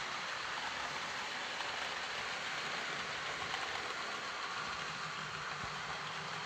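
Model train of Blue Train coaches running along the layout track, its wheels and motor making a steady rolling noise with a faint low hum.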